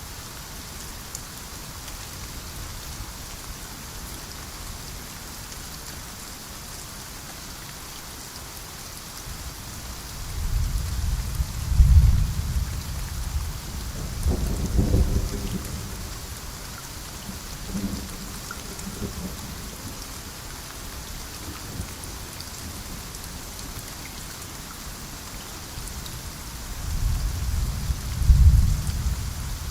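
Steady rain falling, with individual drops ticking through the hiss. Low rumbles of thunder roll in three times: twice around the middle, and once more near the end.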